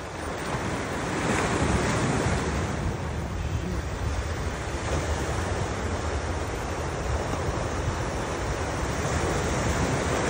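Ocean surf washing ashore with wind buffeting the microphone, a steady rushing noise that swells a little about a second in.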